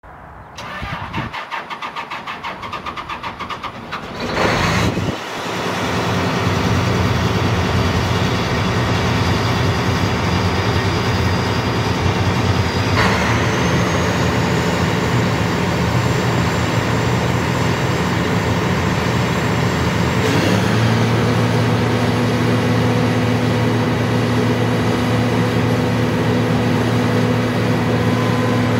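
John Deere 9870STS combine's diesel engine being started: the starter cranks it with a rapid even pulsing for about four seconds, it catches with a loud burst, then runs steadily. About 13 seconds in a high whine jumps up in pitch, and about 20 seconds in a deeper hum grows stronger as the machine's running note changes again.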